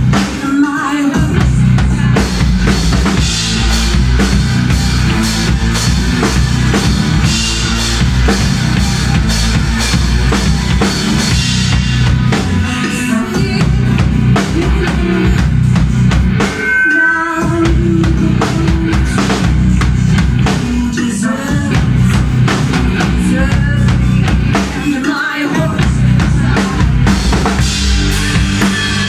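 Live rock band playing loudly: drum kit and bass guitar driving the music, with three short breaks where the low end drops out.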